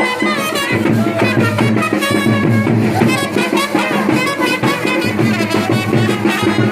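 Loud music with drums playing.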